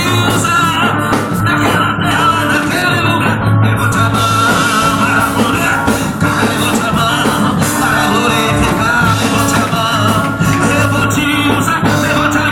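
Band music with a singer carrying a wavering melody over steady, loud accompaniment, typical of a gospel worship group performing.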